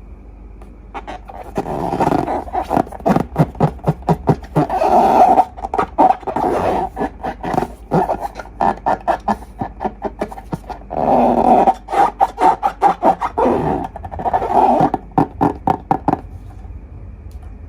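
Slime being squeezed and worked with long rubber balloons: rapid wet squelching pops and crackles, broken by several longer rasping bursts, in two busy stretches with a short lull between.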